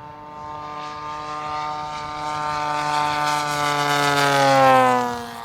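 Propeller of a scale radio-controlled warbird model making a low fly-by. Its pitched drone grows steadily louder, peaks near the end, then drops in pitch and fades as the model passes.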